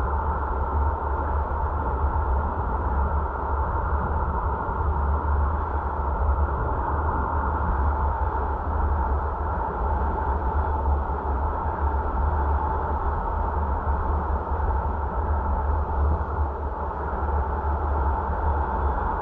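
Steady wind and road noise of a car driving, heavy and deep in the low end with a constant hum in the middle, unchanging throughout.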